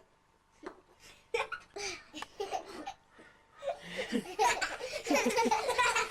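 A person laughing: a few short bursts at first, then steadier, louder laughter from about halfway through.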